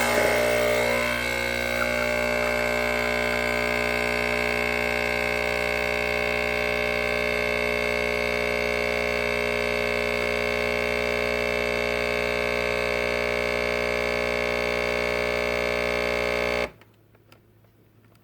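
Nespresso Pixie capsule espresso machine pumping a shot through a Gourmesso capsule: a steady, loud buzz of its pump that cuts off abruptly near the end as the shot finishes.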